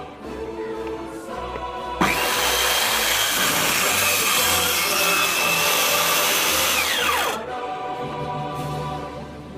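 An electric power tool starts suddenly about two seconds in and runs at full speed with a steady high whine for about five seconds. Its pitch then drops quickly as it winds down, and it cuts off. Background music plays before and after.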